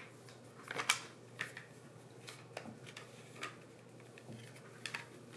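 Light clicks and taps of plastic Play-Doh tools and tubs being handled, a few scattered knocks with a close pair about a second in, over a low steady hum.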